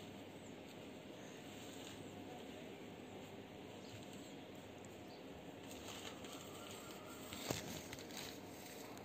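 Fingers rustling through long hair as it is parted to the scalp to pick out lice and nits, with soft crackles in the last few seconds and one sharp click about seven and a half seconds in.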